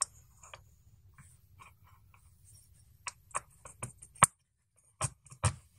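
Carbon-fibre frame arms and plates clicking and tapping against each other as an arm is pressed down onto the bottom plate's screws: faint light clicks at first, then a run of sharp clicks in the second half, the loudest about four seconds in.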